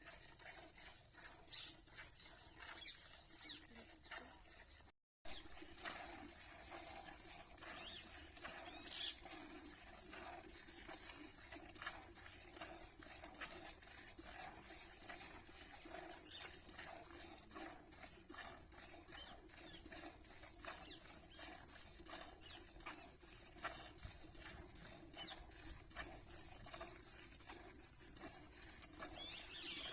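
Milk squirting in quick streams into a pail during hand milking: a faint, continuous patter of short spurts. It cuts out completely for a moment about five seconds in.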